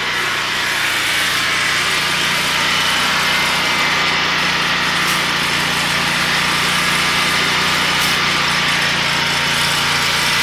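Predator 13500 generator's V-twin engine running steadily on wood gas from a gasifier, under electrical load. The low, even drone holds at the same pitch without revving up or down.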